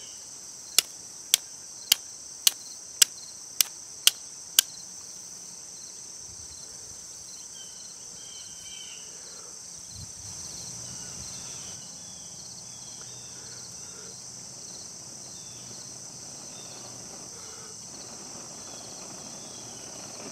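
Steel striking flint about nine times in quick succession, roughly twice a second, throwing sparks to catch an ember in char cloth. Under it and afterwards, a steady high-pitched chorus of insects.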